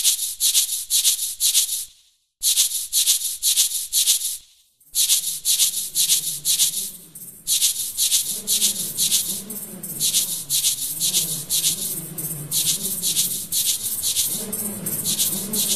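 Music: a shaker rattling in a fast, even rhythm of about four shakes a second, dropping out briefly twice in the first five seconds. From about five seconds in, a low, wavering melody joins beneath it.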